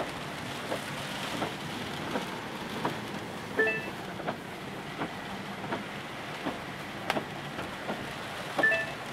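Inside a car driving slowly in the rain: a steady hum of road and engine with rain on the glass, and light taps about every three-quarters of a second. Short high chirps come about three and a half seconds in and again near the end.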